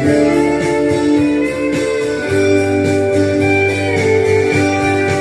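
Instrumental break of a guitar-accompanied country-folk ballad, with sustained guitar chords and no singing.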